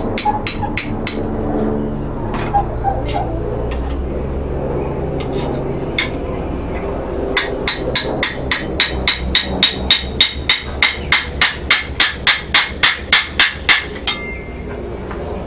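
Hand hammer striking a small steel rivet that joins a trowel blade to its handle, peening it over. A few scattered blows come first; from about halfway a fast, even run of about three blows a second grows louder, then stops near the end. A steady low hum runs underneath.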